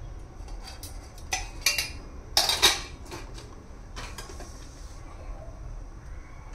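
Kitchen utensils clinking: a few light metallic clinks, then one louder clatter about two and a half seconds in, and a few softer ticks after it.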